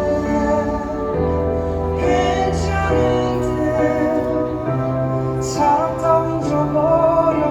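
Live band music: a ballad with a bass line and held chords under a wavering melody line.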